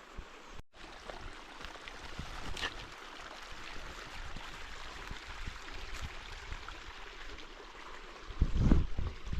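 Water running steadily, with a few loud low thumps near the end.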